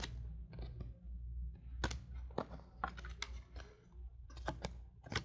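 Trading cards being flipped through by hand: irregular sharp snaps and short slides of card stock against card stock, over a steady low hum.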